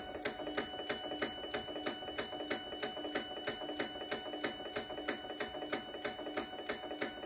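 Roland BN-20 printer ticking evenly, about three to four clicks a second, over a steady electrical hum while it pumps ink through the lines to fill the new printhead's dampers.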